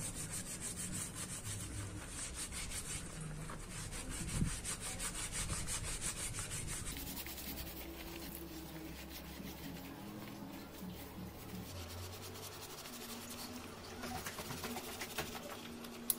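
Wet scouring sponge scrubbing rusted steel carpenter's pincers, quick back-and-forth rubbing strokes repeated over and over.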